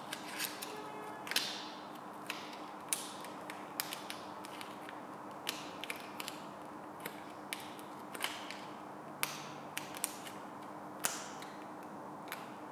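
Vinyl wrap film crackling and snapping in irregular sharp clicks as it is trimmed with a craft knife and pressed onto a brake caliper.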